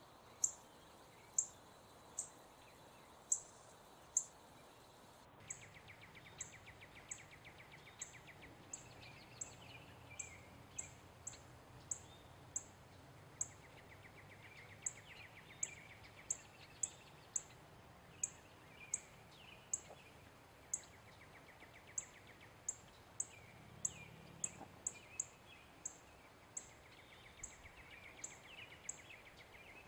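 Male northern cardinal giving sharp, high chip calls over and over, about one to two a second. A faint trilling runs underneath from about five seconds in.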